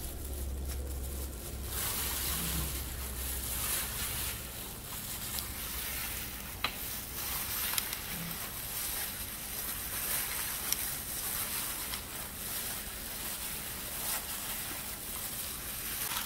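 Hands in plastic food-prep gloves kneading raw ground beef with spices and chopped onion in a glass bowl: a steady squishing and rustling with a few faint clicks.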